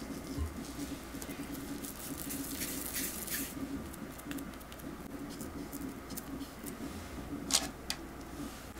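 Hands rolling soft chocolate cookie dough into balls and setting and pressing them onto a parchment-lined baking tray: soft rustling and small scattered taps, with one sharper tap about seven and a half seconds in. A faint steady hum sits underneath.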